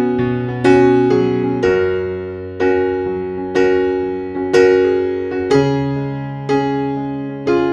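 Background music: slow, gentle electric piano, with chords struck about once a second and left to fade over held bass notes.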